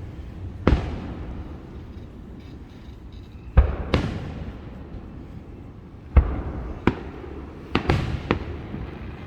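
Fireworks bursting: about eight sharp bangs at uneven intervals, several in quick pairs, with a low rumble between them.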